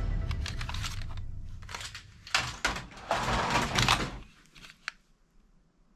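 Plastic toy guns clattering and knocking against each other in a cardboard box as they are handled and put down, in several quick bunches of clicks, then falling quiet.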